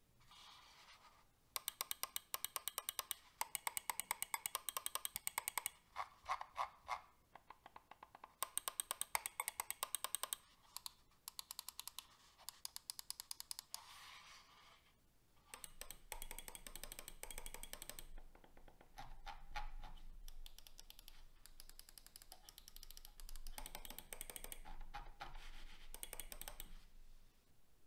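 Logitech G Pro X Superlight 2 gaming mouse buttons clicking: crisp, sharp clicks in fast runs and single presses, then a longer stretch of denser, rougher ticking through the second half.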